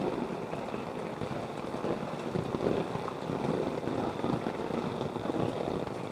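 Flood water sloshing and splashing in irregular surges as someone wades through it.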